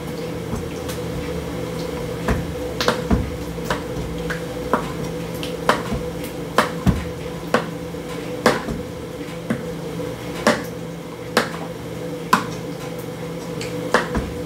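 Metal spoon clinking and scraping against a stainless-steel skillet as gravy is spooned over simmering steaks: irregular sharp clinks, roughly one or two a second, over a steady hum.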